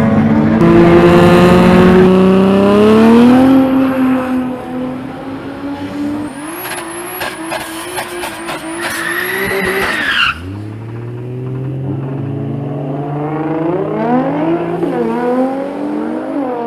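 Turbocharged Toyota 1JZ engines at full throttle. First a car pulls away with its revs rising. Then a Toyota Hilux does a burnout with its tyres squealing, and after a cut it launches and revs up through its gears, the pitch dropping at each change.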